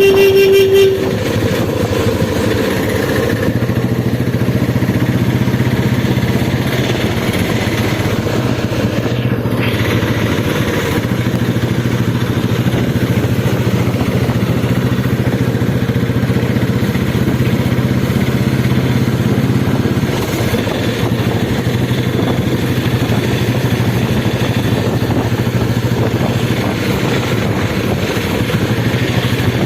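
Royal Enfield Bullet's single-cylinder engine running steadily. A vehicle horn sounds briefly at the very start.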